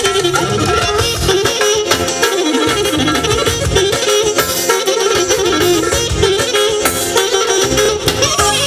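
Live Balkan wedding band music: a saxophone playing a wavering lead melody over keyboard and drums.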